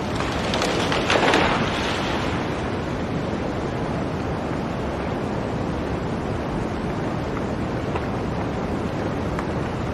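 Blizzard wind blowing steadily, with a stronger gust about a second in.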